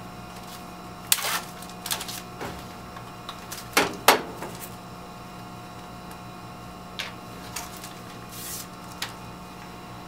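Steady hum of a biosafety cabinet's blower, with scattered clicks and knocks of plastic lab ware being handled as a serological pipette is unwrapped and fitted to an electric pipette aid. The loudest knocks come about four seconds in, with a short hiss near the end.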